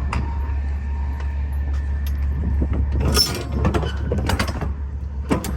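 Semi truck's diesel engine idling as a steady low drone, with a run of sharp metal clanks and rattles from about three seconds in, such as trailer door hardware being handled.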